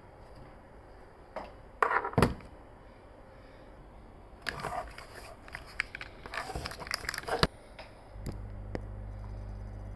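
Hands handling a Sony QX1 camera with a large lens and its plastic articulating mount: two sharp knocks about two seconds in as it is set down, then a run of clicks and rattles. A low steady hum starts near the end under further clicks.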